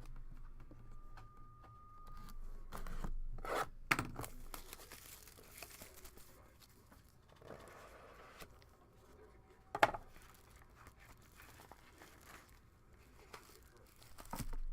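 A trading card box and its plastic wrapping being torn open, with crinkling and rustling of the packaging. There are sharp snaps about four seconds in and again near ten seconds.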